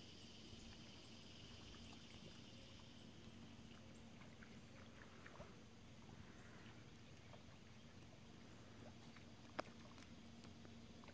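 Near silence: faint outdoor ambience with a low steady hum and scattered soft clicks, one sharper click near the end.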